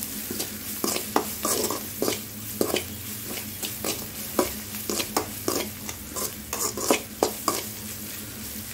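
Metal slotted spoon scraping and knocking against an aluminium kadai as shallots, dried red chillies and curry leaves are stirred in hot oil, in irregular strokes about two a second over a steady sizzle of frying.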